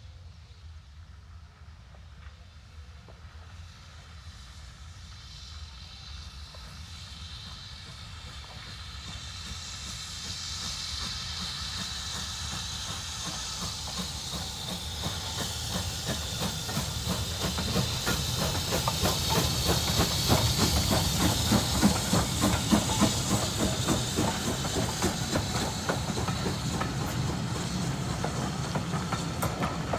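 Steam locomotive hauling a train, drawing closer and growing louder until about twenty seconds in, with a steady hiss of steam, rapid exhaust beats and the clatter of the train's wheels on the rails.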